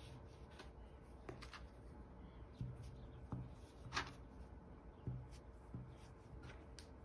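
Plastic dough scraper cutting through soft bread dough and pressing down onto a glass tabletop: faint soft thumps in pairs and a few short sharp clicks, the sharpest about four seconds in.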